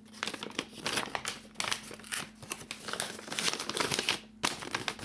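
Paper bags rustling and crinkling as they are handled, in dense irregular bursts, with a brief pause near the end.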